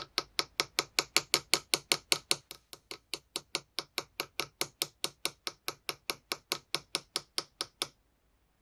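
Small hammer tapping a steel stamping punch to strike a birthday mark into the back of a metal pendant: an even run of about forty light metallic taps, roughly five a second, that stops abruptly near the end.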